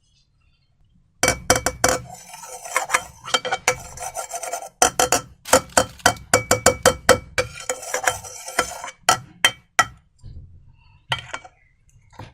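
Slime being worked: a quick, dense run of sharp sticky clicks and crackles with some rubbing, starting about a second in and thinning to a few scattered clicks near the end.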